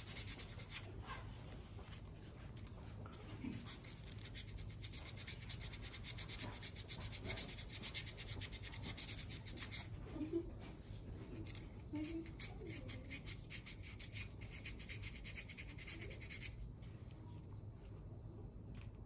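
Sandpaper rubbed quickly back and forth by hand on a thermostat housing, a rapid scratchy hiss, smoothing the surface for a home-made gasket. The sanding stops suddenly near the end.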